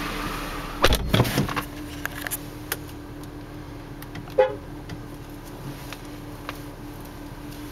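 A cluster of sharp clicks and knocks about a second in, then a brief car-horn toot from the 2007 Porsche 911 Carrera's steering-wheel horn about four seconds in, over a steady low hum.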